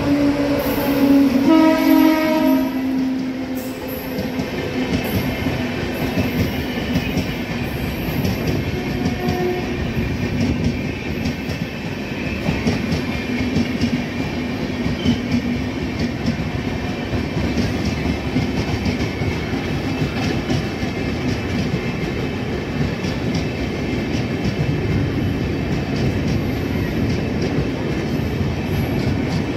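Indian Railways electric locomotive sounding its horn for the first few seconds as it runs through the station, then a long train of LHB passenger coaches passing at speed with a steady rumble of wheels and a clatter over the rail joints.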